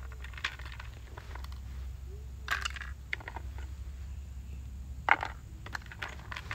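Small plastic toy charms and pieces clicking and tapping as they are handled in a plastic jewelry box, with two louder short crinkly bursts about two and a half and five seconds in, over a steady low rumble.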